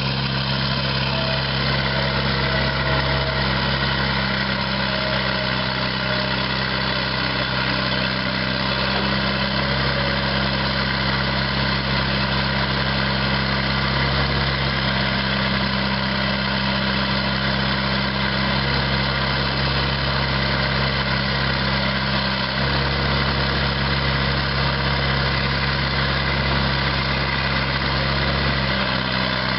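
Hyundai Robex 130LC excavator's four-cylinder turbo diesel engine running steadily at a constant speed, with a slight change in its low note about 23 seconds in.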